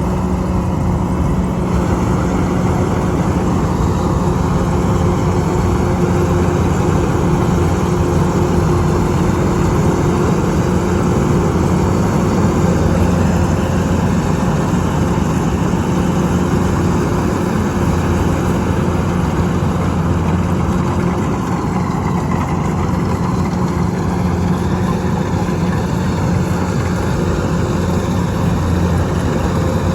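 Engine of a rice-harvesting machine running steadily, a constant low hum with mechanical noise over it.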